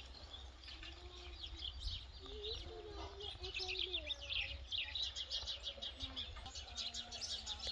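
Many small birds chirping and twittering in quick, overlapping calls, over a steady low rumble, with a few lower wavering calls.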